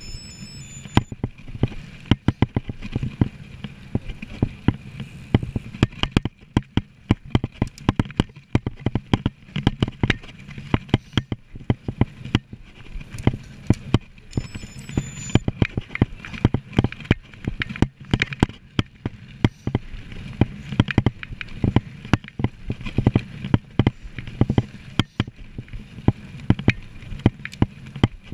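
Mountain bike ridden fast over rough ground, heard from a handlebar-mounted camera: a constant, irregular rattling and knocking of the bike and camera mount over bumps, over a low rumble of tyres and wind.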